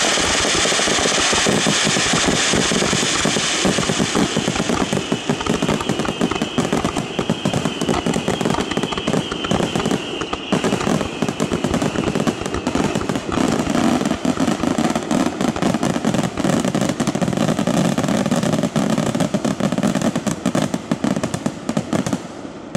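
Aerial fireworks finale: many shells bursting in rapid succession, a dense unbroken barrage of bangs and crackling. It dies away at the very end.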